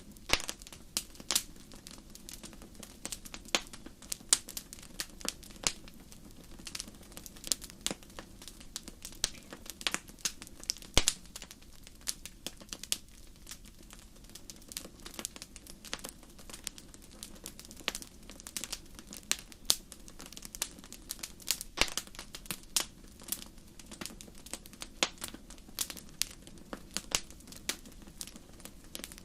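Wood fire crackling in a fireplace: irregular sharp pops and snaps, a few much louder than the rest, over a steady low background of the burning.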